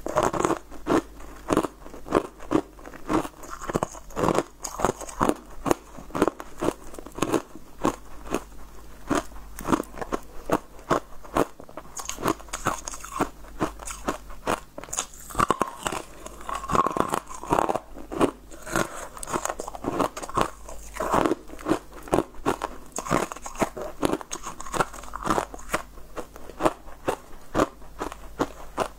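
Teeth biting and chewing chunks of frozen coloured ice, many crisp crunches in quick succession.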